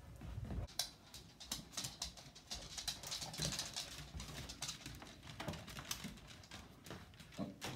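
Beagles and a baby mini pig scurrying on a hard wooden floor: quick, irregular clicks of claws and small hooves, busiest around the middle.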